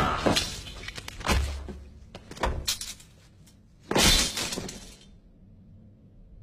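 Film sword-fight sound effects: several sharp hits and clatter, then a loud crash with a low thud about four seconds in, after which it goes quiet.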